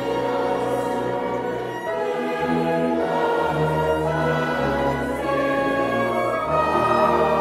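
Church choir and small orchestra with strings performing a Christmas cantata: held chords that change about every second and a half.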